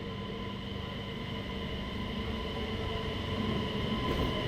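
A train running steadily: a low rumble with a steady electric whine of several tones over it, growing slightly louder towards the end.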